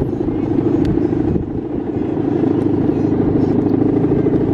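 The hummer (guangan) on a big Balinese bebean kite, droning steadily in the wind with a rough, fluttering buzz.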